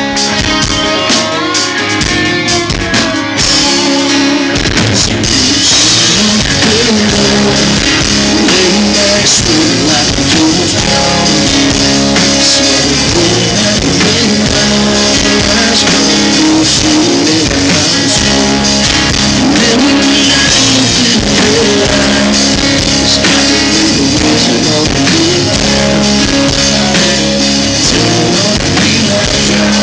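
Live country-rock band playing loud: a few separate guitar strums at first, then the full band with drums and cymbals coming in about four seconds in and carrying on steadily.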